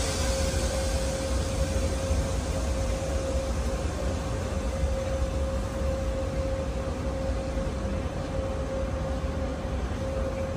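Steady hum and low rumble of a stationary double-deck commuter train idling at an enclosed station platform, with a steady high whine over the top.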